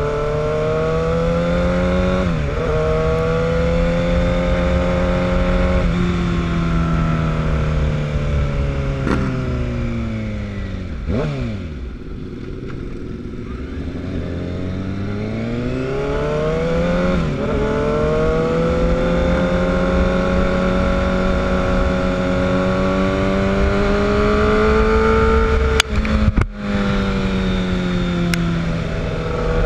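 Sport motorcycle engine pulling through the gears, its pitch climbing and then dropping sharply at each upshift. It falls away as the bike slows about eleven seconds in, then climbs through the gears again, with wind noise on the microphone.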